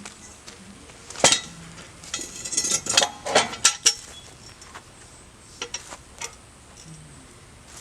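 Scattered knocks and metallic clinks of objects being handled. A sharp knock comes about a second in, then a cluster of ringing, clattering clinks, then a few fainter ticks.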